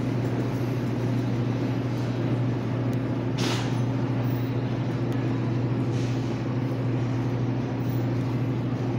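Dixie Narco Bev-Max drinks vending machine's refrigeration unit running with a steady low hum, and a short hiss about three and a half seconds in.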